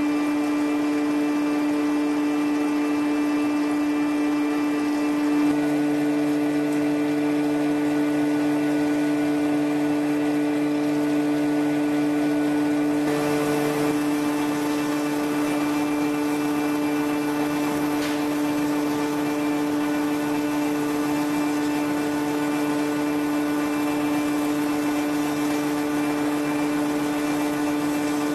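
Thread rolling machine running with a steady electric hum made of several held tones over a light hiss, as its grooved dies roll a thread onto a steel bar under coolant. A lower tone joins the hum about five seconds in.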